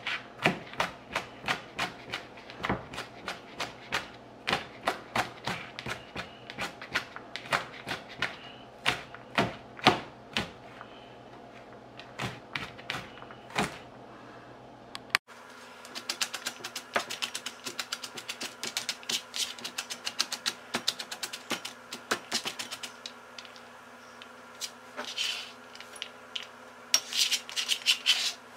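Santoku-style chef's knife chopping garlic cloves on a plastic cutting board: steady knife strikes at about two to three a second, then from about halfway a faster run of lighter, rapid taps as the garlic is minced fine.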